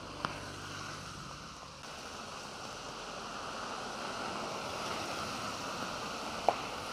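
Steady hiss of traffic on a rain-soaked road: tyres swishing on wet asphalt as vehicles pass. Two short sharp ticks, one just after the start and a louder one near the end.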